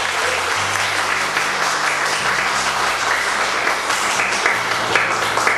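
Congregation applauding: dense, steady clapping from many hands, over low held music notes that change every couple of seconds.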